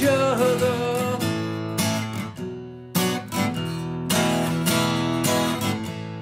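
Strummed acoustic guitar music, with chords struck every second or so and a higher wavering note in the first second.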